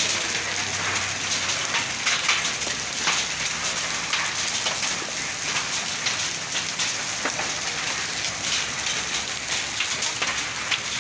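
Heavy rain mixed with hail falling on an asphalt road: a dense, steady hiss of rain pierced throughout by many sharp individual hits of hailstones.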